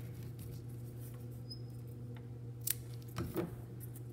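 Scissors cutting a cardboard strip to correct its angle: a sharp snip about two and a half seconds in, then a duller knock a moment later.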